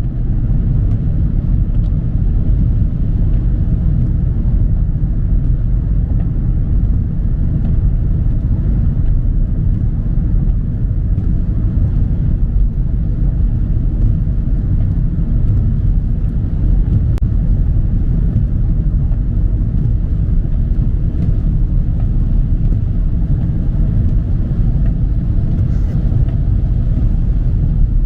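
Steady low rumble of a car driving on a highway in the rain, heard inside the cabin: tyre and road noise on a wet road, with a few faint ticks.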